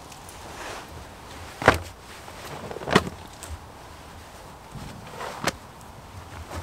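Deer hides being laid and thrown down onto a bed of bare logs: the skins rustle and flap. There are three sharp slaps, two about a second apart in the first half and one more later.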